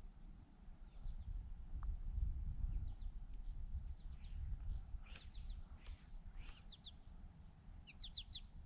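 Small birds chirping in short, quick downward notes, often in pairs and threes, most of them about five seconds in and near the end, over a low rumble.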